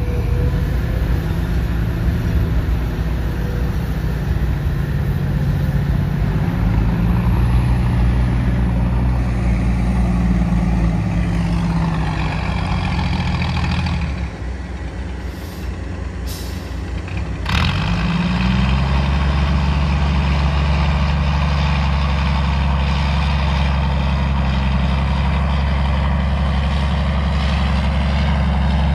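Heavy diesel engines of an excavator loading a dump truck. The engine pitch rises and falls under load for the first half, dips quieter, then runs steadily. A single short, sharp sound comes a little past halfway.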